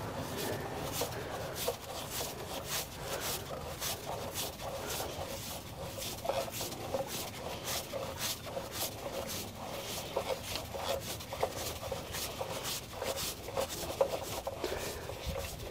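Hands and tools working a diesel engine's secondary fuel filter off: a steady run of small irregular clicks, taps and rubbing sounds as the filter canister is turned and handled.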